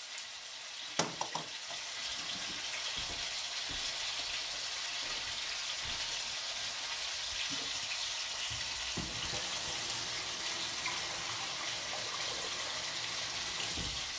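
Chicken thighs sizzling as they brown in oil in a skillet, a steady hiss. There are a couple of light clicks about a second in.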